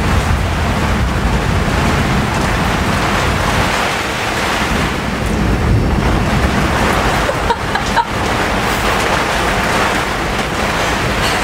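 Tropical cyclone wind and heavy rain lashing a sailboat: a loud, steady rush of noise, with heavy low buffeting in the first few seconds.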